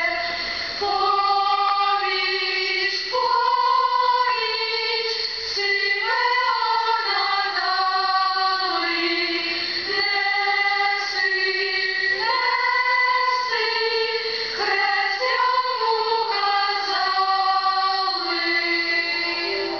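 Choir singing a slow hymn in long held notes, several voices together in chords that change every second or two.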